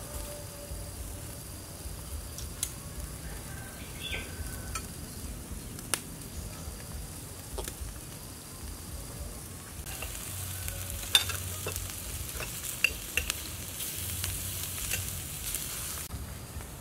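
Beef grilling over charcoal: a sizzling hiss with sharp crackles, loudest over the last several seconds and cutting off suddenly near the end. Before that, only faint scattered clicks.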